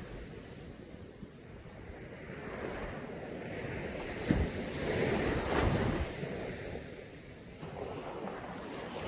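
Caribbean Sea waves washing onto a beach: a wave breaks with a sharp splash about four seconds in and swells for a couple of seconds, then eases before the next one rises near the end.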